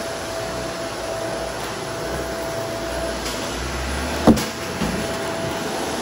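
Shark Apex vacuum cleaner running steadily, with a sharp knock about four seconds in and a smaller one shortly after.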